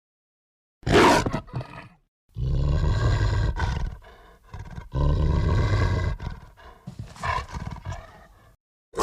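Werewolf creature sound effects: a sharp snarl about a second in, then two long, deep growls of about a second and a half each, then a few shorter snarls near the end.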